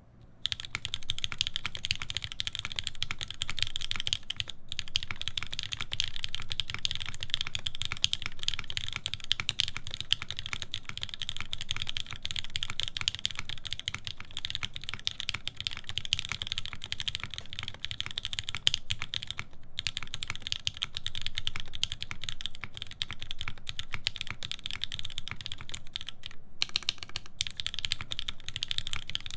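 Continuous fast typing on a mechanical keyboard with lubed Cherry MX Black linear switches, GMK keycaps and a full aluminum plate, starting about half a second in, with a few brief pauses.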